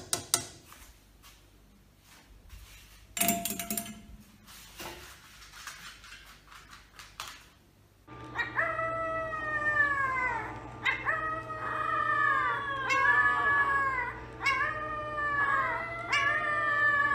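Puppy howling: a run of high, rising-and-falling howls repeated one after another over a steady hum, starting about halfway through. Before that, scattered clicks and a short clatter about three seconds in.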